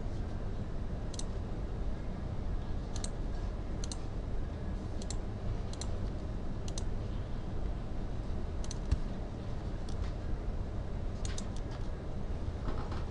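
Computer mouse clicking: about a dozen short clicks spread out, some in quick pairs and one quick triple near the end, over a steady low hum.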